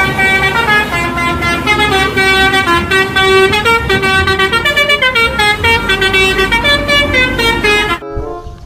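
Multi-tone bus horn (an Indonesian 'telolet' horn) playing a quick tune, its notes stepping up and down. It cuts off suddenly near the end.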